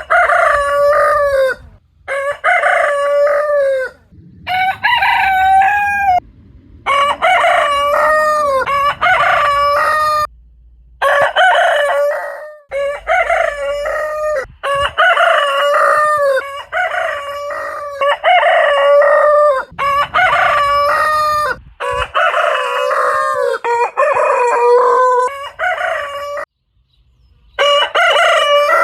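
Roosters crowing, about a dozen cock-a-doodle-doo crows in a row, each lasting one to two seconds, with short gaps and sudden cuts between them.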